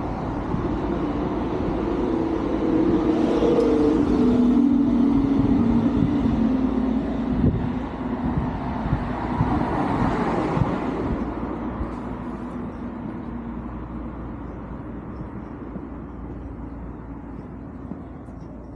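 A motor vehicle passing close by: its engine grows louder, its pitch dropping slightly as it goes past, then fades away over the last several seconds.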